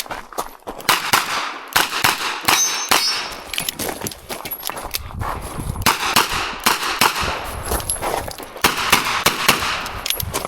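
Revolver shots fired in quick strings during an IPSC stage, each a sharp crack with ringing after it, mixed with metallic clangs from hit steel targets.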